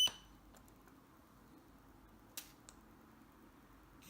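An electronic beep from the key-fob signal tester cuts off at the very start. Then low room tone with a few faint clicks, the loudest two close together about two and a half seconds in, from key-fob and tester buttons being pressed.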